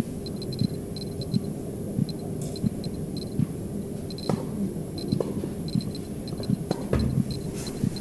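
TERRA radiation dosimeter chirping at random intervals, each short high beep marking a registered particle, while it reads about 2 µSv/h on radioactively contaminated moss. Under it is a low handling rumble, with a couple of knocks.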